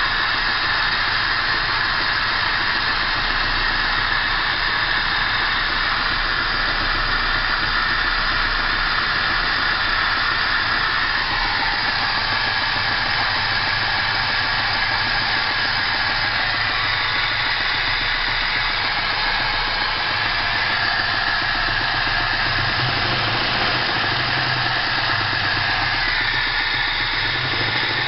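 Engine idling steadily with a knock in it, a knock that appeared after a full service and reassembly.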